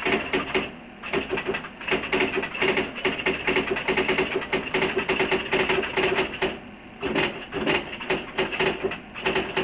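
Electric typewriter typing in rapid runs of keystrokes, a fast patter of sharp mechanical strikes. There are brief pauses about a second in and again near seven seconds.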